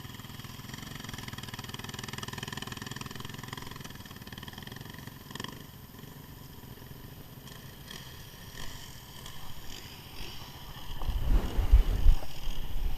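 Quad bike (ATV) engine running steadily as it tows another quad away, fading slightly as it moves off. A loud low rumble on the microphone near the end.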